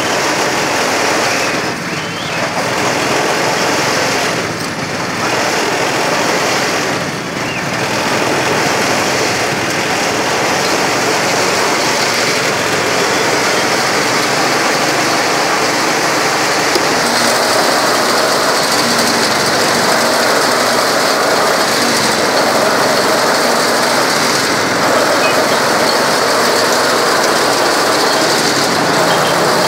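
Loud, steady street-market din with motor traffic and faint voices. About halfway through the mix changes and a steady hum joins it.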